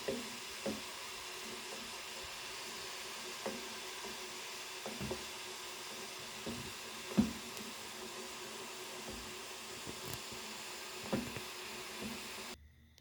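Steady sizzling hiss of dry sugar frying and boiling in a metal spoon over the heat as it caramelises, with a few soft knocks, the loudest about seven seconds in. The hiss cuts off abruptly near the end.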